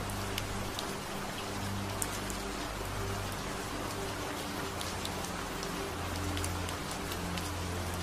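Recorded rain falling steadily, an even hiss with scattered sharp drop ticks, layered over soft low held tones that shift in pitch every second or so: the drone of a delta-wave sleep track.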